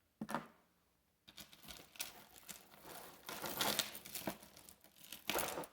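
Jewelry being sorted by hand: small metal pieces clinking and rattling against each other, with rustling, in an irregular string of short clatters that starts about a second in and is loudest near the end.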